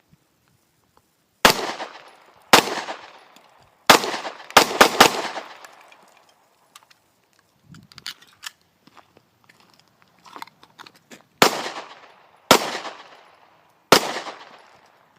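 Gunshots from a firearm fired at targets, single shots each with a ringing echo tail: five in quick succession over about three and a half seconds, then a gap of about six seconds, then three more a little over a second apart.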